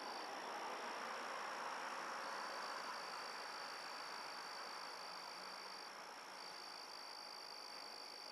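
Night chorus of insects and frogs: a steady high-pitched insect trill that drops out twice briefly, over a soft, even hiss of calling.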